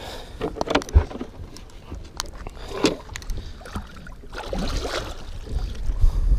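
Handling noise from a hinged wooden fish-measuring board being unfolded in an aluminum boat: scattered knocks and scrapes, with a hard thump about a second in and a low rubbing rumble later on.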